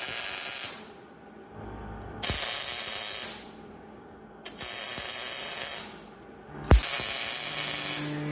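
Four short bursts of hissing from pressurised air or spray, each about a second long and each opening with a sharp click, roughly two seconds apart.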